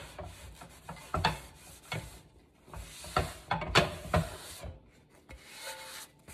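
Paper towel rubbing and scraping around the inside of a skillet, wiping it out between batches of chicken, with several sharp knocks spread through the wiping.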